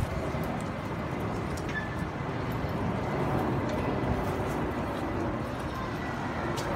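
Steady outdoor rumble of wind and distant traffic, with a few faint clicks.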